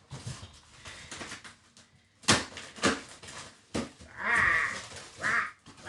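Packaging being handled during unboxing: a few sharp knocks, then two short, high, wavering squeaks about two-thirds of the way in.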